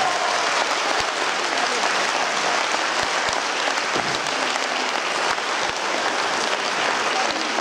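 Audience applauding steadily at the end of a stage dance performance.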